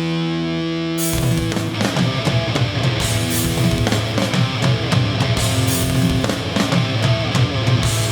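Live hardcore punk band playing: a held, distorted electric guitar chord rings alone for about a second, then the drums and full band come in at a fast, heavy tempo.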